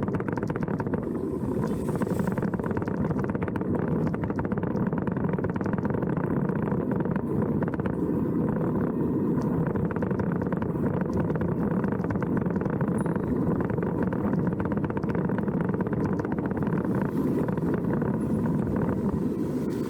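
A vehicle's engine running steadily on the way uphill, with a faint steady tone over it.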